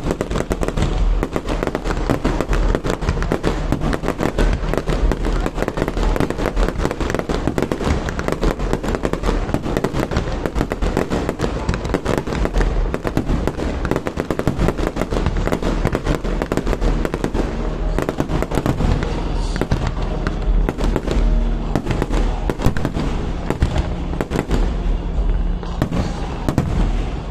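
Fireworks display: aerial shells bursting in a dense, unbroken run of rapid bangs and pops, many a second, with no lull.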